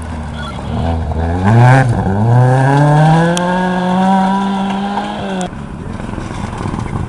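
Rally car engine accelerating hard on a gravel forest stage. The revs drop and pick up again twice in the first two seconds as it shifts gear, then climb steadily as the car pulls away. The engine sound cuts off suddenly about five and a half seconds in.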